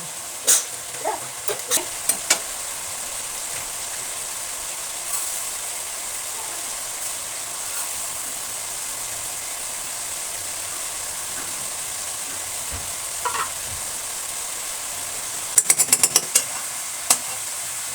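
Food frying in a pan with a steady sizzle. A few sharp clicks of a utensil come near the start, and a quick run of clicks near the end.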